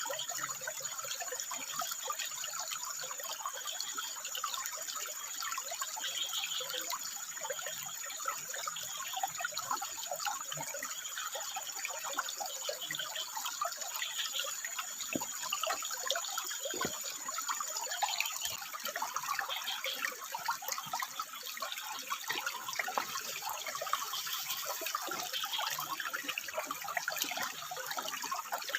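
Running water trickling and splashing at a steady level, with a thin steady high-pitched tone over it that stops about two-thirds of the way in.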